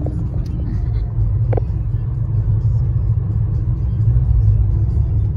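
Steady low rumble of road and engine noise inside a moving car's cabin, with a couple of faint clicks in the first two seconds.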